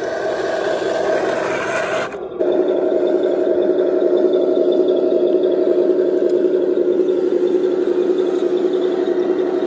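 Heng Long 1:16 RC Panzer III tank running: a steady electric drivetrain whine with a light track rattle, broken by a short dip about two seconds in.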